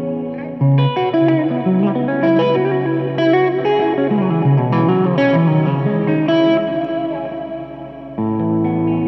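Solo electric guitar, a sunburst Les Paul-style single-cutaway played through a small tube combo amp, improvising: ringing chords answered by quick melodic runs. A fresh chord is struck about eight seconds in.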